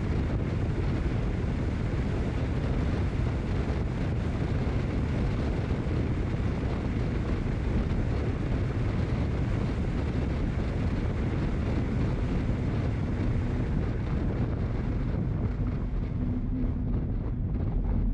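Steady rush of wind over the microphone of a moving rider's camera, mixed with tyre and road noise. The hiss thins out near the end as the pace drops.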